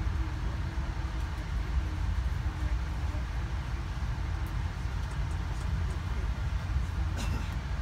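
An Amtrak Northeast Regional train moving slowly, heard from inside the passenger coach: a steady low rumble, with a few light clicks and a sharper click about seven seconds in.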